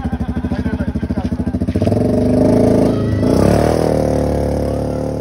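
Small off-road vehicle engine idling with a rapid, even pulse, then revving up about two seconds in and running faster, its pitch rising and dipping.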